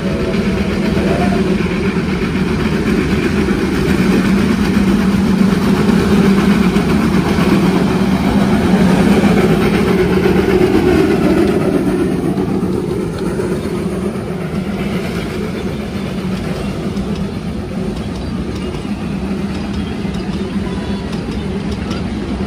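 NG129, a narrow-gauge Garratt steam locomotive, working past at close range. It grows louder to a peak about ten seconds in as the engine goes by, then gives way to the steadier running of the passenger carriages rolling past on the rails.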